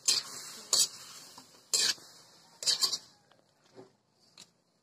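Metal spatula knocking and scraping against a wok while raw chicken pieces are stirred: four loud clanks in the first three seconds, then only faint small taps.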